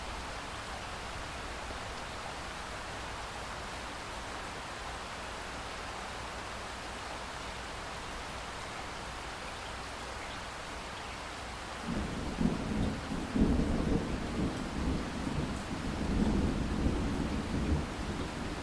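Steady rain hissing, then about two-thirds of the way through a low rumble of thunder rolls in suddenly and keeps rumbling, swelling twice.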